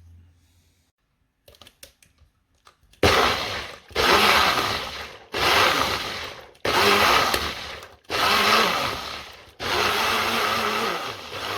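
Nutribullet blender run in about six short pulses, each burst of motor and blade noise a second or so long with a falling pitch, after a few light clicks.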